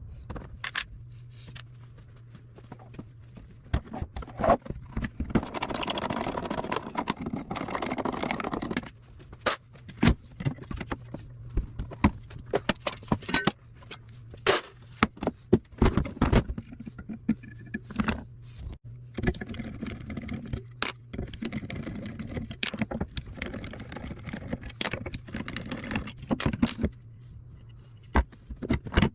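Metal parts and hand tools clinking, tapping and scraping as a food service scale is taken apart, with a longer stretch of scraping about six seconds in, over a low steady hum.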